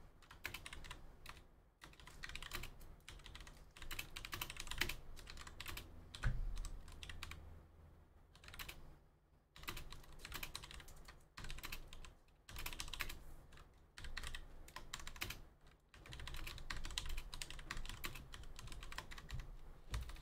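Typing on a computer keyboard: runs of rapid key clicks in bursts with short pauses, and a low thump about six seconds in.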